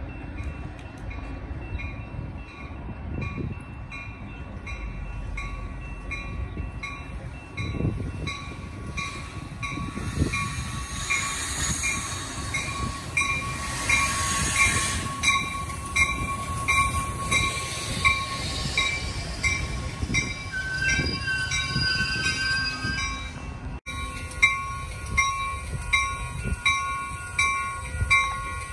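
Railroad grade-crossing bell dinging steadily, about twice a second, while a Metra bi-level commuter train rolls past, loudest partway through as the cars go by. Wind rumbles on the microphone throughout.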